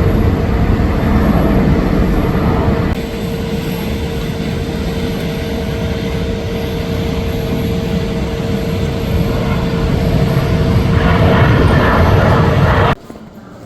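Jet airliner engines running, heard as a loud rumble with a steady whine; the sound cuts off abruptly near the end.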